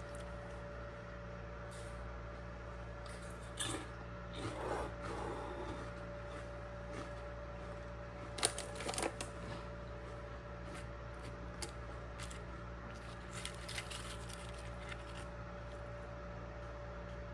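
Knife trimming raw beef ribs on a cutting board: scattered soft taps, scrapes and squishy handling sounds, the busiest about four seconds and eight seconds in, over a steady electrical hum.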